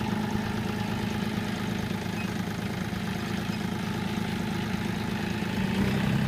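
Small farm tractor's engine running steadily under load as it drags the overturned cargo tricycle, growing louder near the end.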